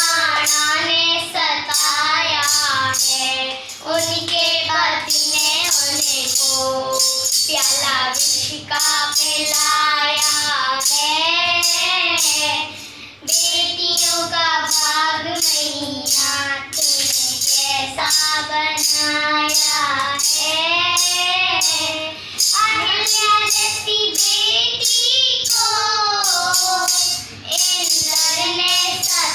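Children's voices singing a Hindi devotional song (bhajan) over a backing track with a steady jingling percussion beat.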